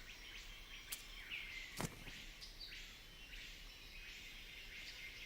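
Faint tropical forest ambience: a short high call repeats about once a second, with two sharp clicks about one and two seconds in.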